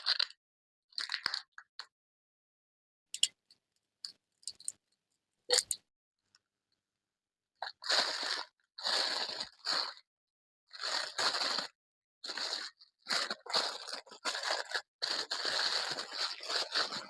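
Packaging being unwrapped close to the microphone, crinkling and crunching in short irregular bursts that come thicker and longer in the second half.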